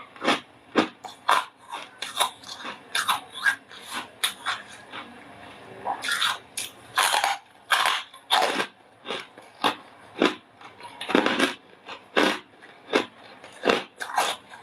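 Close-up crunching of soft freezer frost being bitten and chewed: a steady run of crisp crunches, about two a second, with some louder bites among them.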